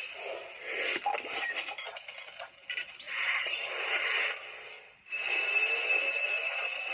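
Electronic transformation sound effects from the toy belt, played through its small tinny speaker. First come choppy, voice-like blasts. About five seconds in, a steady high tone sets in with rising sweeps.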